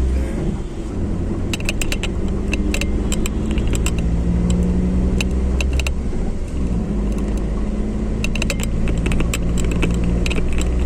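Car engine and road noise heard from inside the cabin while driving in traffic: a steady low hum that dips briefly twice, with frequent light clicking rattles over it.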